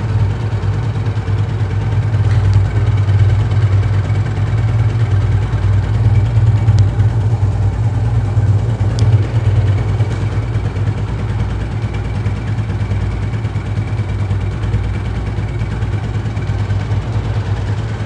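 Motorcycle engine idling steadily after being started with the remote of an aftermarket security alarm.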